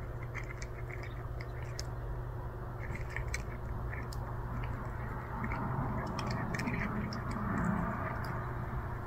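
Domestic cat crunching dry kibble from a ceramic bowl: many small, irregular crunches, over a steady low hum.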